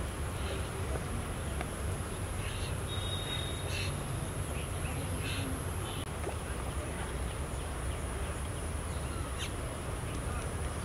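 Open-air ambience of a cricket practice ground: a steady low rumble under a constant high-pitched whine, with a few faint short knocks and distant calls.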